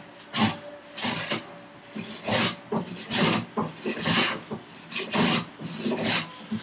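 A hand plane, a Stanley No. 4 smoothing plane, taking short strokes along the edge of figured curly maple: about eight scraping passes, roughly one a second. The wood is difficult, gnarly stock that needs pressure or the blade skips over it.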